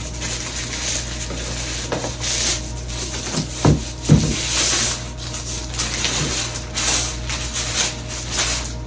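Plastic poly mailer bag rustling and crinkling in the hands as it is worked open and a boxed product is slid out of it, with two low thumps a little under halfway through.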